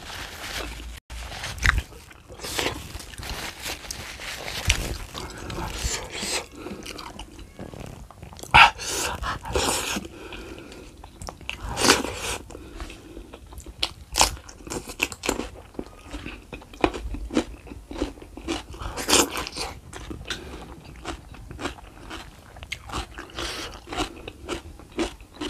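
A person chewing and smacking noisily on mouthfuls of beef foot, rice and chili sambal eaten by hand, with irregular crunchy bites and lip smacks.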